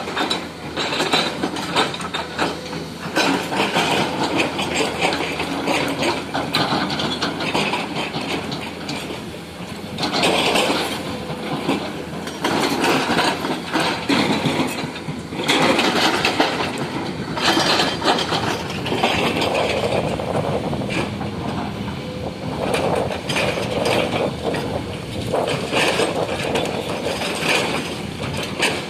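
Hydraulic breaker on a Komatsu excavator hammering, a dense rapid clatter of blows that swells and eases in stretches over the excavator's running engine.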